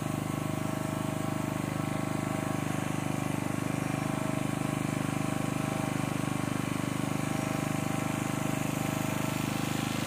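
Steady low drone of an engine running at a constant idle, unchanging throughout.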